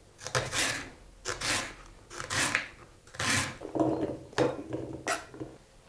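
Kitchen knife slicing through rhubarb stalks on a plastic cutting board, a fibrous crunching cut about once a second. In the last couple of seconds, short knocks as the cut pieces are tipped off the board into a bowl.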